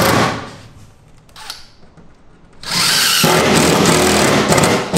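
Power drill running into a wooden board in two bursts: one ends about a quarter second in, and the next starts about two and a half seconds in and stops near the end.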